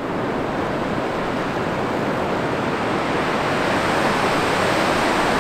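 Steady rush of muddy water pouring over Grand Falls on the Little Colorado River, growing slightly louder.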